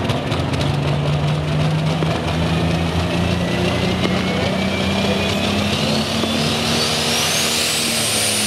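Super stock diesel pulling tractor at full throttle under load, the engine running hard and steady. A high turbo whistle climbs steadily in pitch from about two seconds in and is at its highest near the end.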